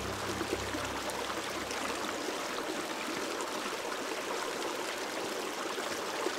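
Shallow mountain stream running steadily over rocks, a constant even rush of water.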